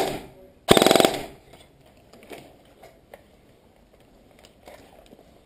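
Airsoft rifle firing a short full-auto burst about a second in, a rapid rattle of shots. Only faint clicks and shuffles follow.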